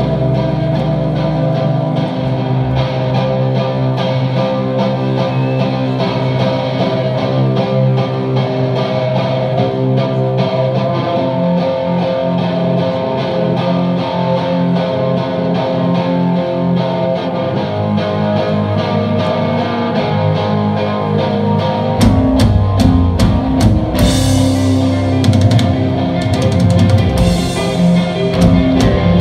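Live rock band: electric guitars hold sustained chords over bass. About 22 seconds in, the drum kit and bass come in fully and the whole band plays louder, with cymbals a couple of seconds later.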